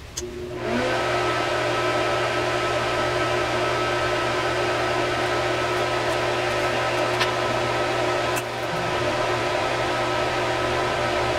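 Fan of a soldering and hot-air rework station switching on about a second in, then running steadily: an even blowing hiss with a low hum under it, dipping briefly near the end.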